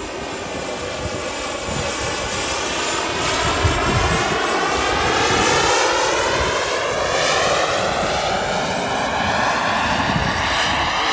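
Radio-controlled J-10 model jet flying past with a continuous engine whine. The sound swells to its loudest about five to six seconds in, and its pitch pattern sweeps as it goes by.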